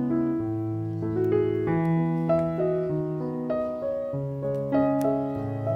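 Background piano music: a melody of single notes over held bass notes.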